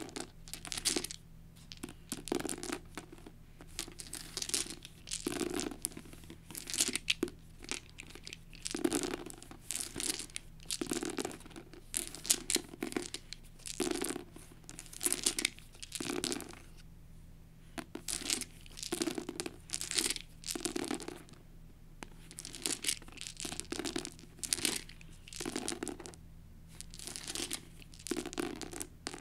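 A handful of translucent plastic six-sided dice rattled in the hand and rolled, clattering onto a paperback book, over and over in bursts every second or two.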